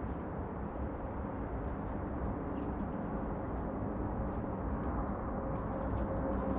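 Outdoor ambience at a backyard bird feeder: a steady low rumble, with faint, short, high bird chirps scattered through it.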